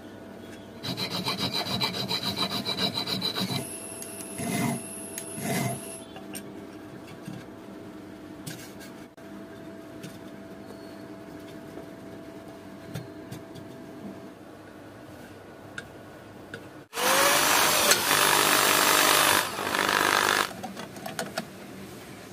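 Old sewing machine's crank mechanism running with a quick rhythmic clicking, about five a second, then two short knocks. Later comes the loudest part: a few seconds of harsh rasping, a tool cutting or rubbing hard on material.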